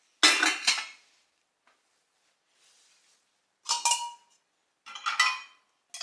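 Stainless-steel pots and utensils clattering and clinking as they are handled and set down in a dishwasher rack. There is one burst just after the start, then three more near the end with a short metallic ring.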